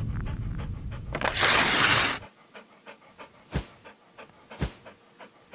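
A low intro music sting ends in a loud whoosh and cuts off suddenly about two seconds in. Underneath it and afterwards, a dog pants quickly and faintly, about three breaths a second, with a couple of soft thumps.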